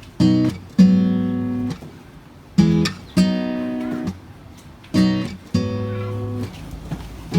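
Music: an acoustic guitar strumming chords in a repeating pattern, a short stroke then a longer ringing chord, about every two and a half seconds.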